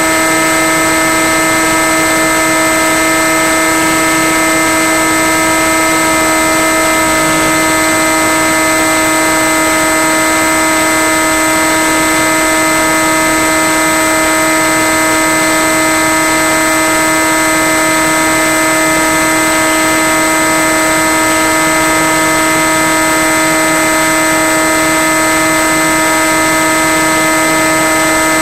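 Electric motor and propeller of a Skywalker FPV plane at steady cruise throttle: a constant droning tone with overtones over a steady hiss.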